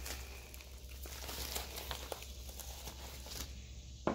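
Plastic packaging crinkling and rustling as it is handled, with a sharp click near the end.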